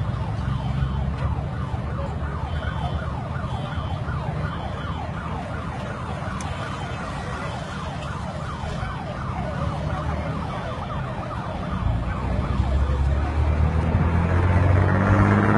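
Police siren on a fast yelp, a rapid pitch sweep repeating about four times a second, over a steady low engine and traffic rumble that grows louder near the end.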